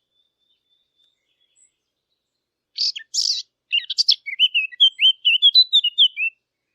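A Sylvia warbler, the 'fig bird', sings one song phrase about three seconds in. It opens with a couple of harsh scratchy notes, then runs into a quick, varied warble that stops short.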